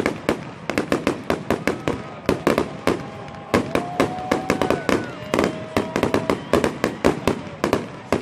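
Fireworks display: a rapid, dense run of sharp bangs and crackles, several a second, with a few steady whistling tones over them in the middle.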